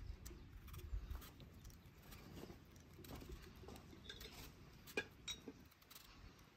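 Faint scraping and small clicks of a kitchen knife peeling the skin off a turnip, with one sharper click about five seconds in.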